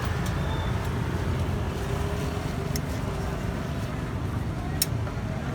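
Steady low rumble of street traffic with motor vehicles running, and a few sharp clicks, the loudest just before the end.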